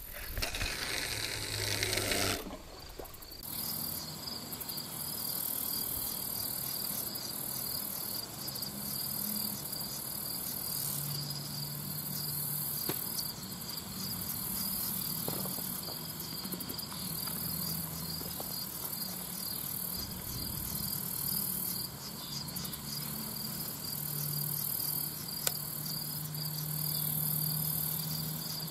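Steady chorus of crickets and other insects, a high, evenly pulsing trill that runs on without a break. A burst of rushing noise fills the first two to three seconds.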